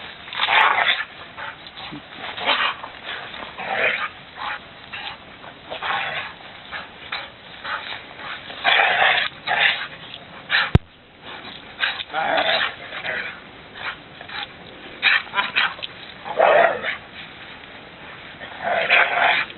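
A dog playing in snow: irregular short rushing noises come and go throughout, with one sharp click about eleven seconds in.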